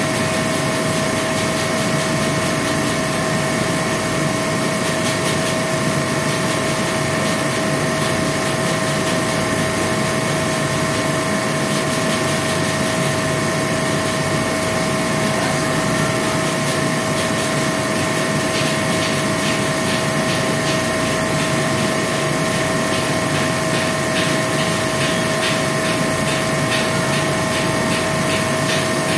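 A machine running steadily: a constant mechanical hum with a fixed whine, and faint fast ticking in the second half.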